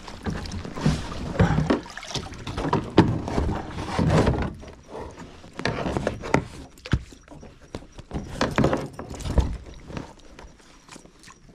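Irregular hollow knocks and thumps of boots and body shifting on a plastic sit-on-top kayak as a person climbs back in and settles, busiest in the first half and sparser and quieter near the end.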